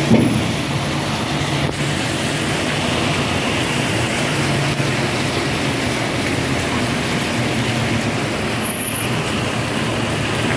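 Steady low drone and rumble from the vehicle moving a retired C151 train car slowly past at close range, with a brief knock right at the start.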